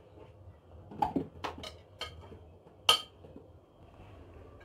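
Cut banana pieces tipped from a bowl into a blender jar: a handful of knocks and clinks of the pieces and bowl against the jar, bunched between about one and two seconds in, with one louder knock near three seconds.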